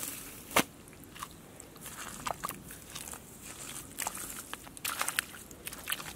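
Bare feet treading in wet mud and grass: irregular squelches and small crackles, with one sharper smack about half a second in.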